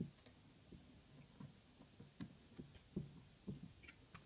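Faint, irregular light taps and clicks, roughly two a second, of a small circuit board and its component leads being handled in a metal helping-hands clamp.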